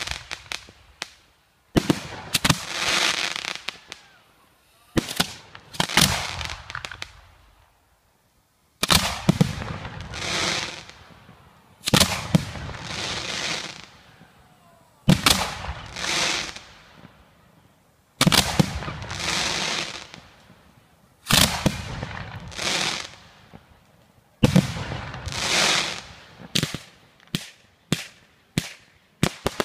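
Pyrotechnic shells going off about every three seconds. Each is a sharp bang followed by a hissing, crackling tail that swells and dies away over about two seconds. Near the end comes a rapid string of sharp reports.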